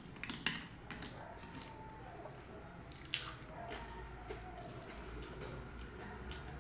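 Wet eating sounds of a person eating rice with dal: soft squishy mouth and food noises, with a few sharp clicks, the loudest about half a second in and about three seconds in.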